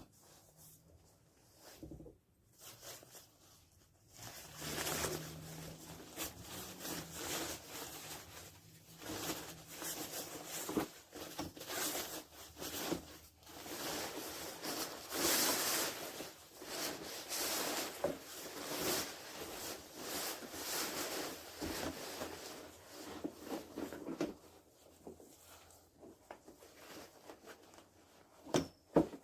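Rustling and rubbing of the animatronic prop's plastic parts and costume fabric as they are handled and fitted together, with scattered clicks; busiest from about four seconds in until near the end.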